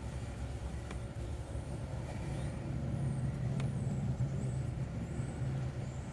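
Car engine idling, heard from inside the car as a steady low rumble that grows somewhat louder in the middle.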